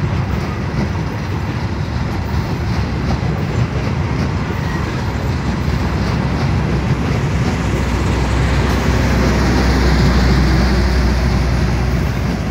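Passenger coaches of a departing train rolling past on the rails, a steady rumble with faint clicks of the wheels. From about eight seconds in, a steady low drone swells as the train's diesel power-generator car draws level.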